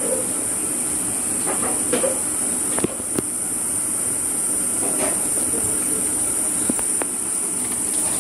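Footsteps and a few sharp knocks over a steady high hiss as someone walks down concrete stairs.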